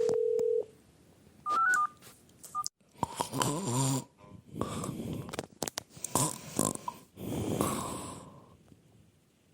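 A brief steady telephone tone and a few short electronic beeps, then a man snoring into a phone: four long, rasping snores, the first with a rattling buzz.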